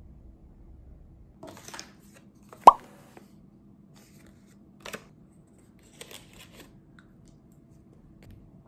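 Quiet handling sounds at a table: a short rustle, then one sharp clink a little under three seconds in, then the brief crinkling of a small supplement sachet being handled and torn open, twice.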